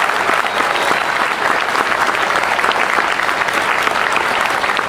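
Audience applauding: many people clapping steadily, a dense patter of hand claps.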